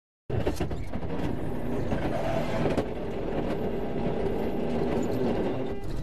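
Diesel semi-truck engines running with a steady rumble as a tractor-trailer creeps past close alongside, heard through a dashcam in the cab. It cuts in a moment after the start.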